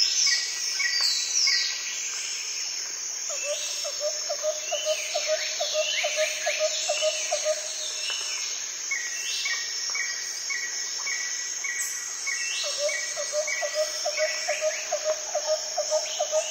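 Wild birds calling over a steady high insect buzz: many short chirps falling in pitch, evenly repeated higher notes, and a run of quick low notes at about three a second that stops midway and starts again near the end.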